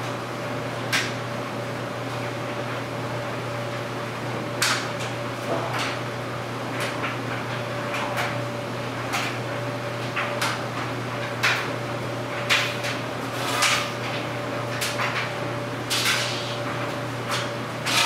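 Clothes dryer running with a steady low hum, its drum tumbling a load of clothes, with irregular knocks and clicks from the tumbling load about once a second.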